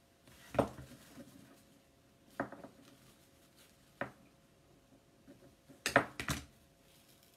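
A few short knocks and clicks of artificial flowers and craft supplies being handled and set down on a work table, about six in all with a quick cluster near the end, over a faint steady hum.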